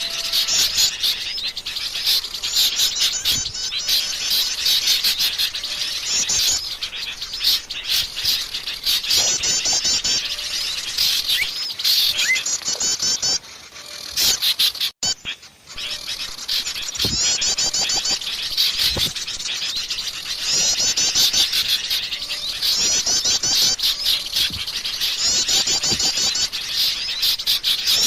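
Wild forest birds chirping and singing together: a dense chorus of high chirps with repeated rapid trills about a second long. The sound drops away briefly about halfway through, then resumes.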